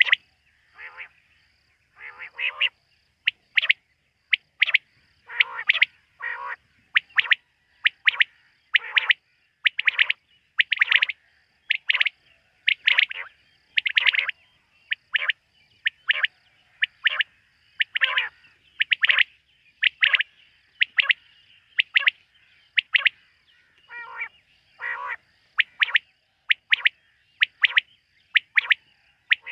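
Quail calling at night: short, sharp calls repeated over and over, about one or two a second, with no real pause.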